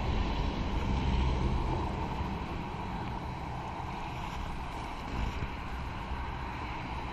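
Wind buffeting a kayak-mounted camera's microphone as a low, uneven rumble, over a steady rush of water while the kayak is paddled.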